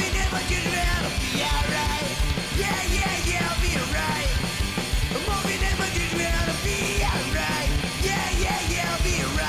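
Punk rock song: shouted vocals over electric guitars, bass and a fast, driving drum beat.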